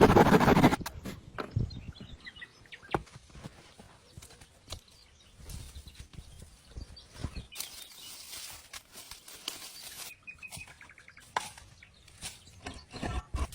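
A few quick bird chirps over scattered light knocks and rustling from handwork, with a louder rustling burst in the first second.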